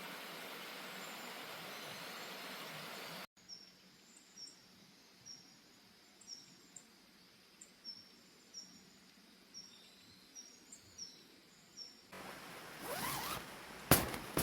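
Steady outdoor hiss, then after a cut a quiet background with short high chirps about once a second. Near the end a zipper is pulled in a few quick strokes, the last one sharp and loud.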